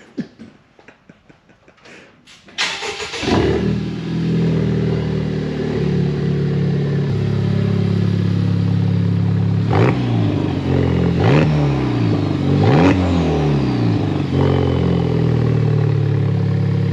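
Honda Civic Type R's turbocharged 2.0-litre four-cylinder started with no exhaust fitted past the downpipe. It catches about two and a half seconds in and idles, with three quick blips of the throttle in the middle before settling back to idle.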